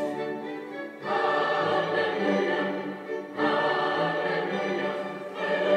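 Choral music with singing playing through a Cambridge Audio Go V2 portable Bluetooth speaker, a playback test after its faulty driver was repaired.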